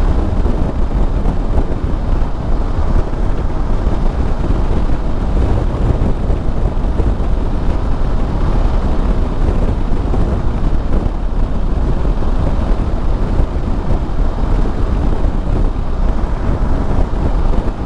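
Steady wind rush buffeting the microphone over the running engine and road noise of a Yamaha Super Ténéré parallel-twin adventure motorcycle cruising at highway speed.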